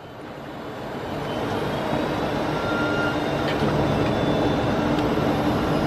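Cabin noise inside a Boeing 747-400 on final approach: a steady rush of engine and airflow noise with a few faint steady tones. It grows louder over the first two seconds, then holds.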